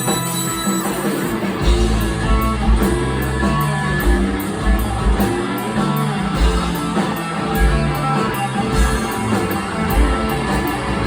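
Live rock band playing an instrumental passage: electric guitar over bass and drums, with the cymbals keeping a steady beat.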